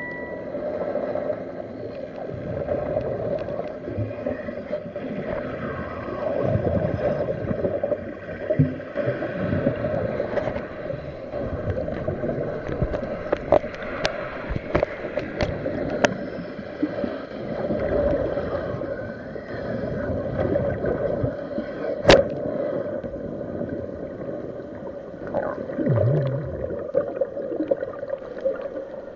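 Underwater sound from a diver's camera: a steady engine drone carried through the water, with gurgling and scattered sharp clicks, the loudest about three-quarters of the way through.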